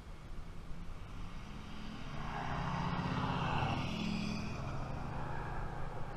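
A motor vehicle driving past on the road, its engine and tyre noise swelling to a peak about three to four seconds in and then fading away.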